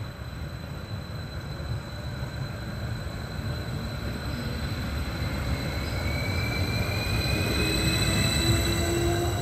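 Passenger train pulling out and gathering speed past the platform, its wheels rumbling on the rails louder and louder. From about halfway through, a whine rises steadily in pitch as it accelerates.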